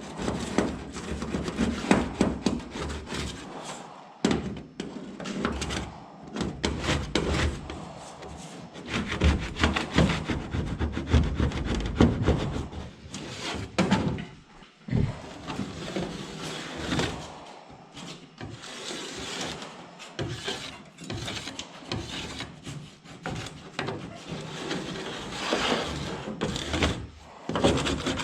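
Metal scraper drawn over an aluminum boat hull in repeated, irregular strokes, scraping off softened paint, with occasional knocks.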